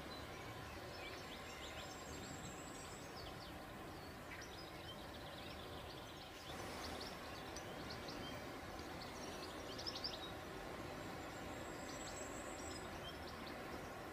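Steady outdoor background noise with scattered short chirps of small birds. The background shifts and gets slightly louder about six and a half seconds in.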